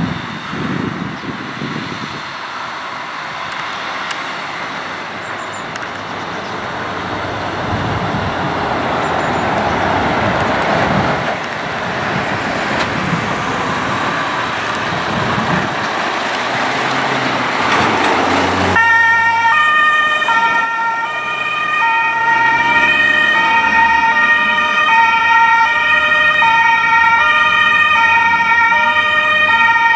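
Trucks and vans driving by with engine and tyre noise that slowly gets louder. About two-thirds of the way through it switches abruptly to German two-tone emergency-vehicle sirens (Martinshorn), alternating between a high and a low note about once a second.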